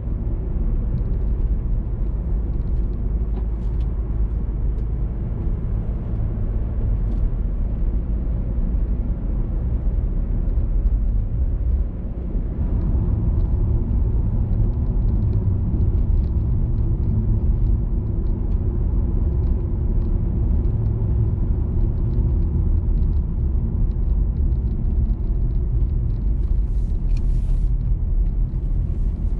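Steady low rumble of a car driving, engine and tyre noise on the road, with a short hiss near the end.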